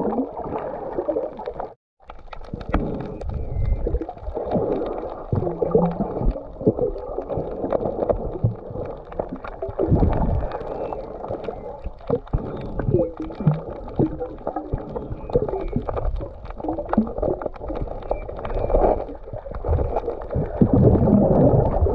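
Muffled underwater sound picked up by a camera in a waterproof housing: water moving and gurgling, with scattered small knocks and clicks. It drops out briefly about two seconds in.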